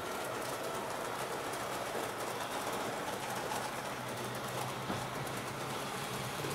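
HO-scale Roco model of an NS 1100 electric locomotive running with its train on the layout track: a steady low motor hum with the rolling noise of the wheels on the rails.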